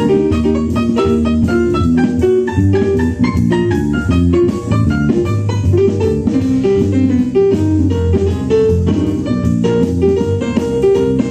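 Small jazz combo of violin, piano, bass and drum kit playing a swing blues, a busy line of quick short notes over a walking bass and drums.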